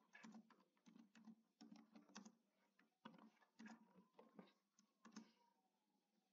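Faint computer keyboard typing: irregular keystrokes that stop about five seconds in.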